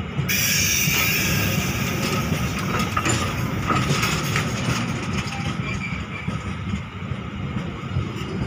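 Passenger train coaches rolling past on the track, a steady rumble with a few sharp clacks from the wheels.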